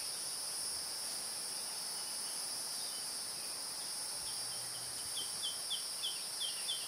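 Steady high-pitched drone of an insect chorus, with a run of short repeated chirps, about four a second, coming in around two-thirds of the way through.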